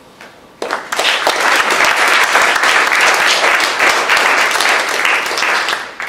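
Audience applauding. It starts about half a second in, holds steady, and dies away near the end.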